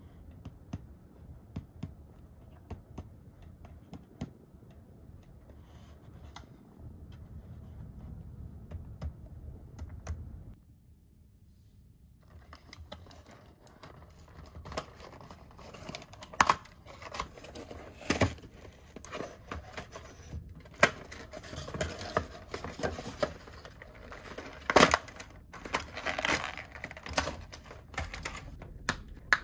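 Hands unboxing a toy set. For the first part there is muffled handling with a few light clicks. After a short lull, a dense run of sharp plastic clicks and taps follows, with packaging crinkling and tearing.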